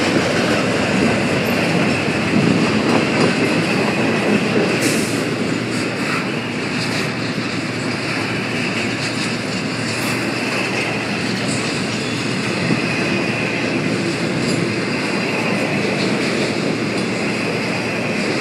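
Double-stack intermodal freight train rolling past: steel wheels running on the rails with a steady rumble and a steady high tone over it, and a couple of sharp clicks about five and ten seconds in.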